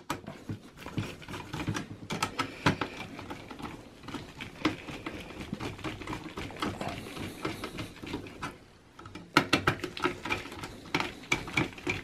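Torx T15 screwdriver driving the heatsink-fan screws back into a desktop PC's processor cooler: a run of small, irregular clicks and scrapes of the driver and screws, with a short pause a little past three-quarters of the way through and then quicker clicking.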